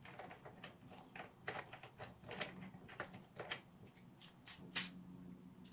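Faint, scattered clicks and light knocks of a hand socket driver turning a nut off a brass threaded rod, with the 3D-printed plastic blaster parts being handled.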